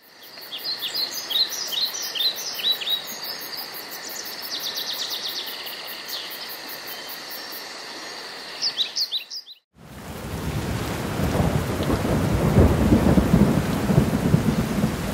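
Forest ambience: birds chirping in short falling calls over a steady hiss, which cuts off abruptly about two thirds of the way in. Heavy rain with rumbling thunder follows.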